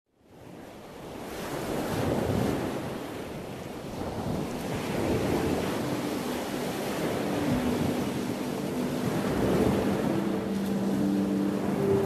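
Ocean surf: waves breaking and washing in a steady rush that fades in at the start and swells and eases. From about five seconds in, soft sustained music notes come in underneath.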